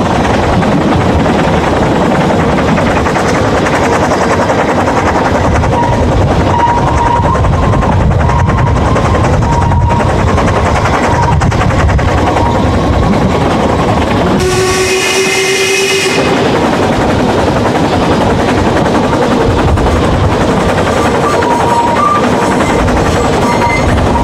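Narrow-gauge steam train running, heard from an open carriage window: a steady rumble and clatter, with short high squeals from the wheels on the curves. About two-thirds of the way in, the locomotive's steam whistle sounds once for about a second and a half.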